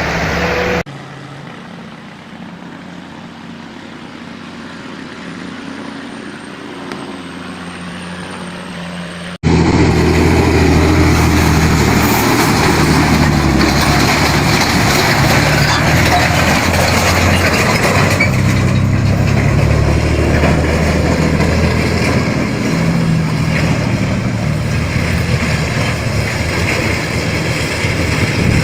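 Road vehicle sounds, with a heavy truck engine running among traffic. The sound cuts abruptly about a second in to a quieter stretch, then jumps back to loud, steady engine noise a little after nine seconds.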